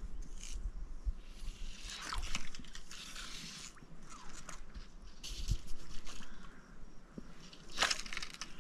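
Fly casting: several soft swishes and rustles as fly line is stripped from the reel and whipped back and forth through the air, the sharpest swish near the end.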